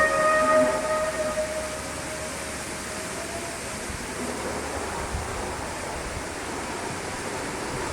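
The unexplained 'sky trumpet' sound: several steady tones at different pitches sounding together, fading out within the first two or three seconds, leaving a steady rushing noise.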